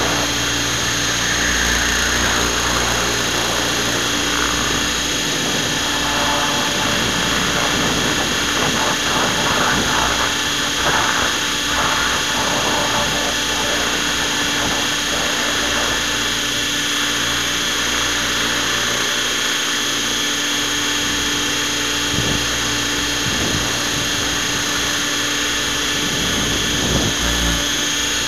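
Radio-controlled model helicopter's motor and rotor running steadily, picked up close by its onboard camera: a constant whine over a low hum, with no change in pitch.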